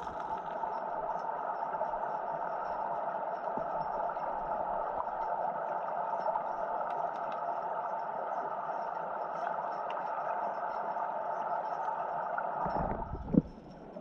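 Steady muffled rush of river current picked up underwater through the camera housing, with a few faint ticks. About a second before the end there is a low knock, and the rush then drops away.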